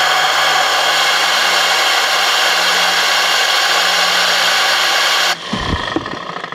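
Compressed air at 75 PSI driving a DIY air turbine: a loud, steady rushing hiss with a high whine over it. The air cuts off suddenly about five seconds in, leaving quieter rattling and a few knocks.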